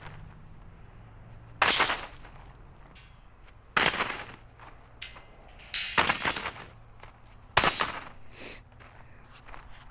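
Tyvek tape being pulled off the roll in a series of sharp rips, about one every two seconds, each rip short and loud.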